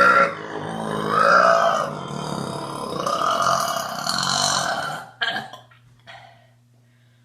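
A woman's long, drawn-out burp lasting about five seconds, loudest at the start, its pitch wavering as it goes. Two brief, quieter sounds follow near the end.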